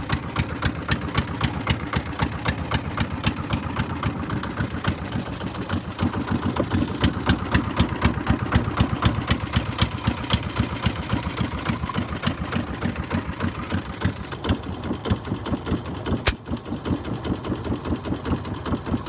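Small boat engine running steadily at a fast, even beat. Near the end there is a single sharp crack.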